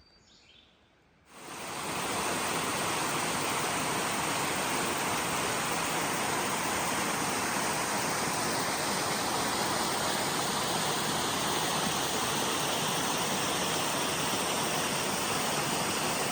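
Rushing water from a mountain stream or small cascade: a steady, even rush that starts suddenly about a second in.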